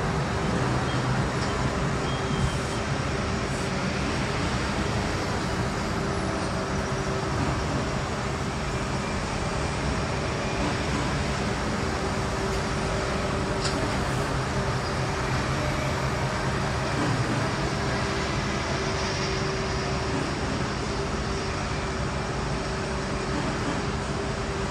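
Steady urban traffic noise: engines running and tyres on the road, with a constant low hum underneath.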